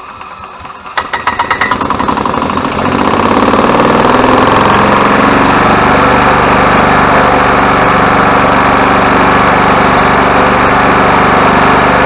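1998 Club Car DS gas golf cart's single-cylinder Kawasaki engine starting: it catches with a string of sharp pops about a second in, speeds up over the next two seconds, then runs steadily without missing. The skip is cured by a new ignition coil with built-in igniter.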